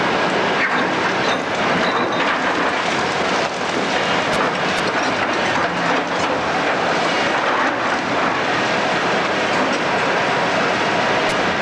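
Building demolition work: a steady, dense din of machinery and breaking material, with light clatters scattered through it.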